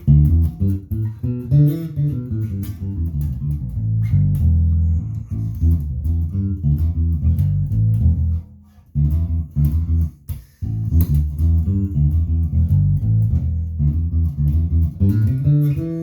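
Harley Benton JJ-55 electric bass with its two J-style pickups blended evenly and fresh DR Pure Blues nickel strings, playing a line of plucked notes. The treble is partly rolled back, leaving enough highs without being too bright. The playing stops briefly about eight and a half seconds in and again near ten and a half seconds.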